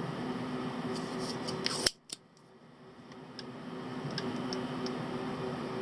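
Light clicks and handling of small metal hand tools on a circuit board over a steady electrical hum, with one sharp click about two seconds in, after which the sound briefly drops away.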